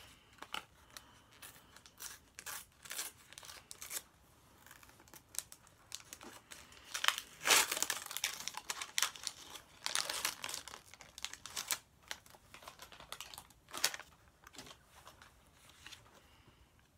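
A sticker packet's wrapper being torn open and crinkled in the hands, in irregular crackling bursts that are loudest about halfway through.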